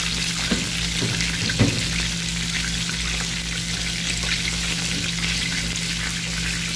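Chicken drumsticks deep-frying in hot oil in a pan, a steady sizzle with fine crackling; the chicken is well browned and done frying. A light knock about one and a half seconds in.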